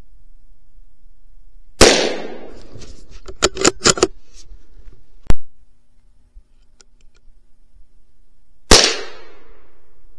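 Two shots from a Ruger American .22 Magnum (.22 WMR) bolt-action rifle, about seven seconds apart, each trailing off in a short echo. Between them comes a quick run of sharp metallic clicks as the bolt is worked, then one single louder click.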